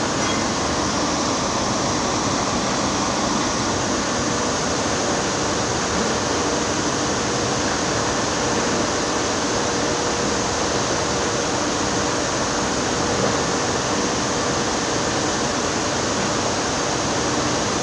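Steady, even machinery noise, a hiss with a faint steady hum, running without change.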